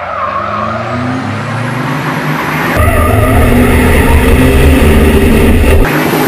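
MAN race truck's diesel engine pulling hard under acceleration, its pitch climbing. From about three seconds in it is louder and deeper for about three seconds, heard close up on board the truck, then drops back to the trackside sound.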